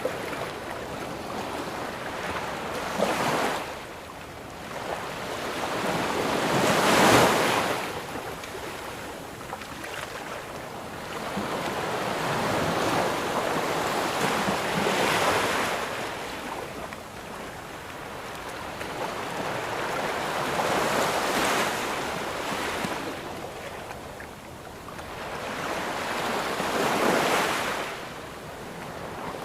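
Ocean waves breaking and washing up onto a sandy beach, the surf swelling and fading with each wave every five or six seconds; the loudest break comes about seven seconds in.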